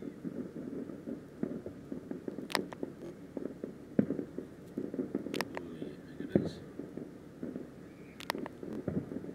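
Fireworks going off at a distance: irregular low booms, the loudest about four seconds in and again past six seconds, mixed with several sharp cracks and ongoing crackling.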